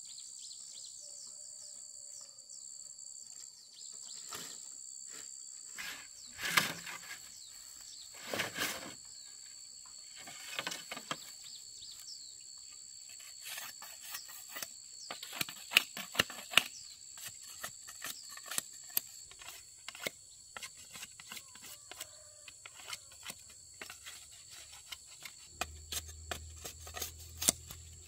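Insects chirring steadily at two high pitches, with scattered sharp clicks and knocks that come thick and fast in the second half; a low hum sets in near the end.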